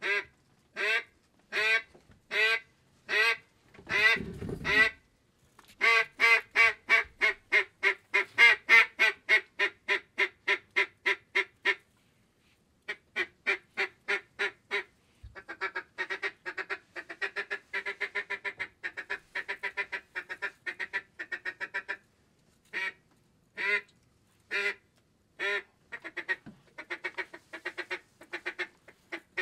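Duck call sounding like a hen mallard: a few single quacks, then long runs of quacks at about five a second with short breaks between them. It is blown to call in ducks that are flying over the blind.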